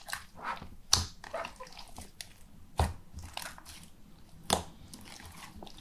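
Clear slime mixed with hydrated instant snow being squeezed and kneaded by hand in a plastic tub: wet squelches with sharp pops, the three loudest about two seconds apart.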